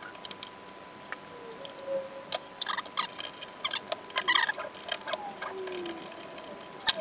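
Irregular sharp clicks and small rattling knocks of hard parts being handled and adjusted by hand, over a faint steady high whine.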